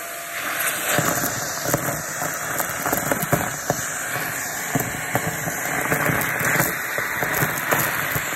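A Shark vacuum cleaner runs with a steady rushing hiss, with rapid irregular crackles and clicks of debris being sucked up and rattling through the nozzle.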